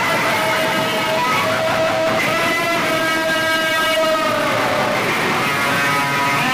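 Loud DJ music from a street loudspeaker stack: a long held, horn-like lead note that bends down about four and a half seconds in and then climbs again, over crowd noise.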